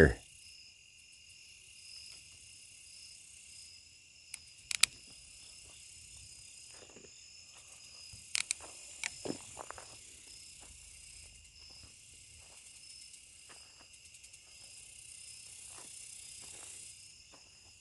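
Crickets chirping in a steady, high-pitched evening chorus. A few sharp clicks cut in about four to five seconds in, and again around eight to nine seconds.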